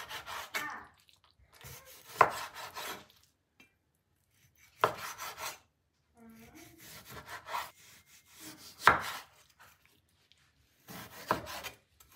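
A cleaver slicing through raw chicken breast on a wooden cutting board. Scraping, sawing strokes through the meat come in separate bursts, and four of the cuts end in a sharp knock of the blade on the board.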